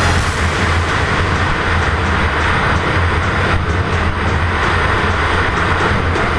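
Racing snowmobile running steadily at speed: a constant engine drone mixed with track noise, holding an even pitch and level throughout.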